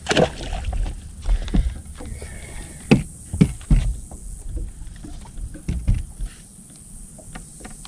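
Wind buffeting the microphone and water lapping at a fishing boat's hull, with scattered knocks and thumps from movement on the deck.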